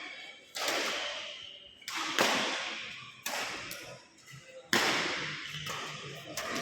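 Storm wind hitting in four sudden noisy blasts, about one every second and a half, each dying away.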